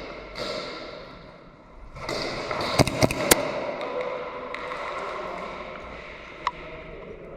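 Three sharp cracks in quick succession about three seconds in, and a single crack near the end, over a steady rustle of movement and gear: shots and BB hits from airsoft fire.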